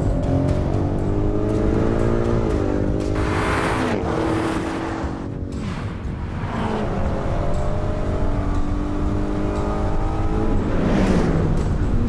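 Cars accelerating hard in a drag race. The engine pitch climbs and drops back at each upshift, and cars rush past with a whooshing swell a few times, about three seconds in, around six seconds and near the end. Background music plays underneath.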